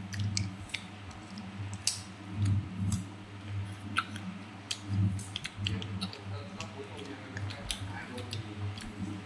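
Close-up chewing of crunchy green mango: irregular sharp crunches and mouth clicks.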